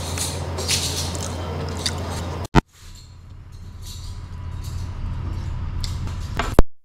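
Steady low room hum with faint light clicks of a metal fork on a ceramic plate. A sharp click about two and a half seconds in is followed by a quieter stretch, and a second sharp click near the end cuts off suddenly into silence.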